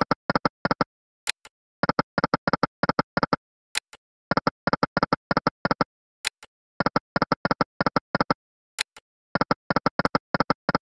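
EGT 'Lucky & Wild' video slot game sound effects: quick runs of short electronic beeps as the reels spin, repeating about every two and a half seconds, with a faint click as each new spin starts.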